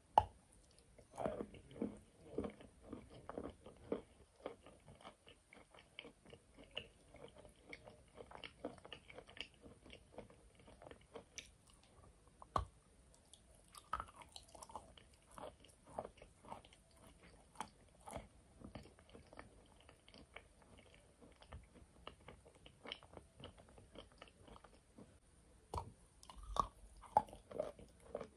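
Close-miked biting and chewing of a block of chalk with a brown clay coating: crisp cracks as pieces break off, then a long run of small crunches as they are chewed. The bites come thickest in the first few seconds and again near the end.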